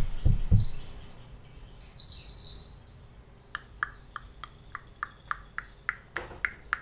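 A few dull low thumps in the first half second, then from about halfway a rapid, even series of short high chirps, about three a second.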